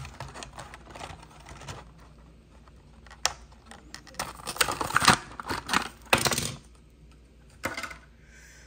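Hot Wheels blister pack being torn open by hand: the plastic blister crackles and the cardboard backing card tears in several irregular bursts. The loudest bursts come about four to six and a half seconds in, with a short one near the end.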